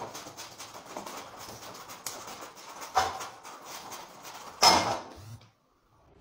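Scuffling and knocking, with two loud bangs about three seconds and about four and a half seconds in, then it cuts off.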